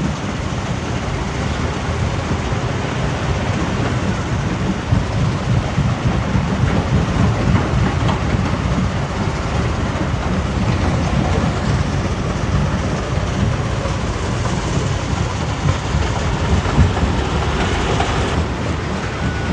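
Heavy machinery at a rock-crushing site running steadily: a continuous low rumble overlaid with a dense rattling clatter.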